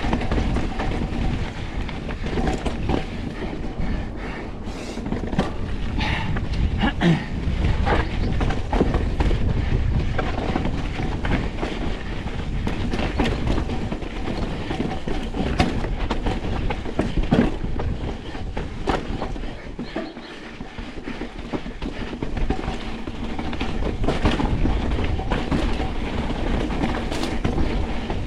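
Pivot Switchblade full-suspension mountain bike riding over rough, rocky trail: a continuous rumble of tyre and wind noise with frequent sharp knocks and rattles from the bike. It eases briefly about twenty seconds in.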